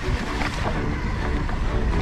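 Wind rushing over an action camera's microphone as an e-mountainbike rolls down a dirt forest trail, with a steady low rumble from the tyres and ground.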